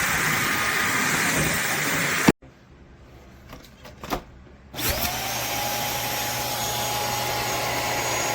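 Shark Clean & Empty vacuum motor running, then switched off with a click about two seconds in. After a few faint clicks it is switched on again about five seconds in, whining up to speed and then running steadily.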